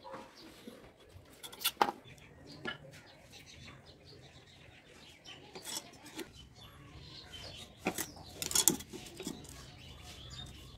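Scattered clicks, taps and light rubbing as a plastic set square and a marker are set down and moved on a small rusty steel plate while lines are marked out, with a couple of sharper knocks about two seconds in and near the end, over a faint low hum.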